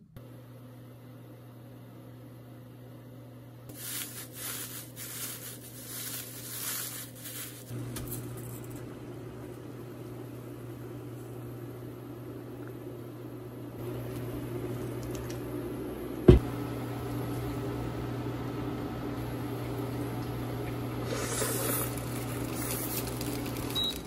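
A large pot of water at a rolling boil on an electric cooktop, with the cooktop's steady electrical hum underneath. Handling noises come in the first seconds, and there is a single sharp click about 16 seconds in. The boil grows stronger until the pot, with somyeon noodles in it, foams up to the point of boiling over near the end.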